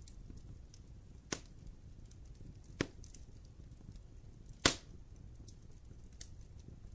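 Wood fire burning in a fireplace: a low rumble of flame with faint scattered ticks, and three sharp pops of burning wood, the loudest near the middle.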